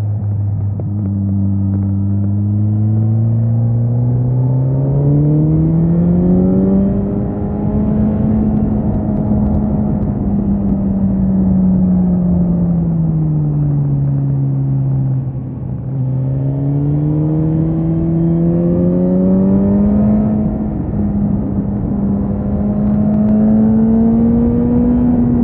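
Suzuki GSX-S 1000's inline-four engine on the move, its pitch rising steadily as the bike accelerates, holding, then falling for a few seconds about halfway through before rising again near the end.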